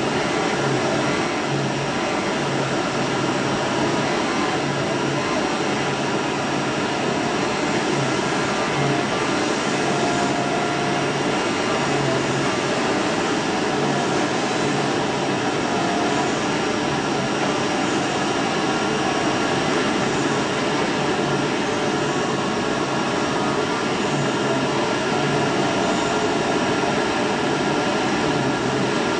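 DCZ70 flatbed oscillating-knife cutting machine running as it cuts sheet board: a steady rushing noise, with a low hum that cuts in and out every second or so as the knife head works.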